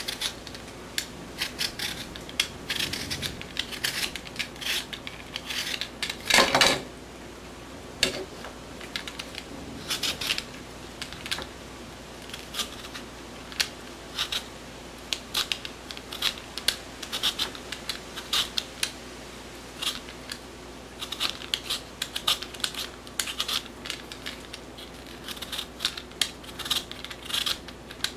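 Vegetable peeler scraping the skin off a potato in quick short strokes, coming in runs with brief pauses. One louder, longer knock or rasp stands out about six seconds in.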